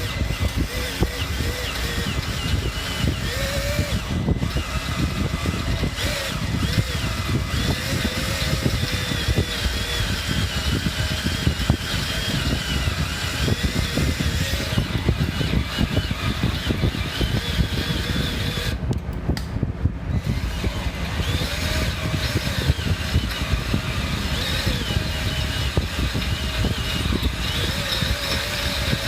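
Power drill boring through a car's bumper crash bar with a large bit, about 12 mm. The motor runs steadily under heavy pressure with a wavering whine, with a brief let-up about 19 seconds in.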